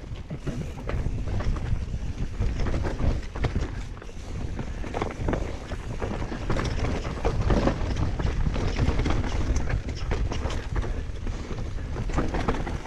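Mountain bike descending a rough trail, its tyres, chain and frame knocking and rattling over the ground, with wind buffeting the microphone as a steady low rumble.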